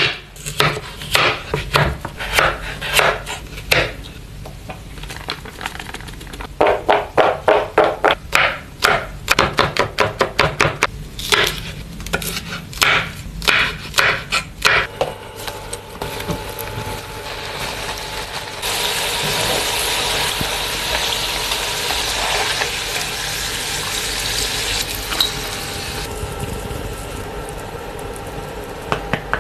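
Kitchen knife striking a wooden cutting board in quick runs of sharp knocks as potato and then spring onion are cut. About halfway through the knocks stop and a steady hiss takes over for about ten seconds, then fades lower near the end.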